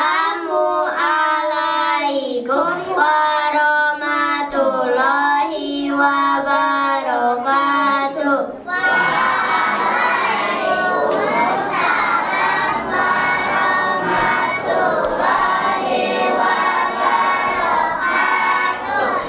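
Children singing: for the first eight seconds or so a child's voice sings held, gliding notes into a microphone, then a large group of children's voices joins in and the singing becomes a thick, massed crowd sound.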